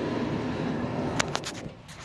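Steady rumbling noise like wind on the microphone, with three quick light metal taps a little past a second in, from a hammer driving a socket against a stuck U-joint cap.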